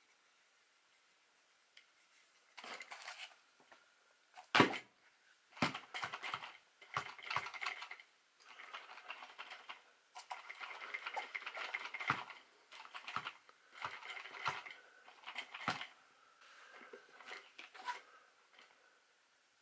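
Plastic chassis and suspension parts of a 1/10 RC truggy rattling and clicking while it is handled, pushed down on its soft shocks and turned over in the hands, with a sharp knock about four and a half seconds in.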